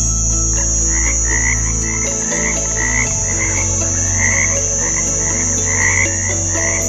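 Frogs croaking in a quick repeated series of short calls, about two a second, over a steady high insect-like trill.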